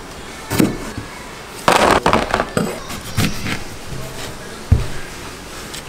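Chef's knife slicing cherry tomatoes and cutting into an avocado on a plastic cutting board: a series of knocks of the blade on the board, with a quick cluster about two seconds in and one heavier thump near the end.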